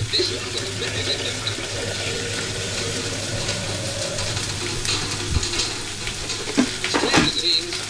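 Water running steadily from a kitchen tap, with a few short knocks near the end.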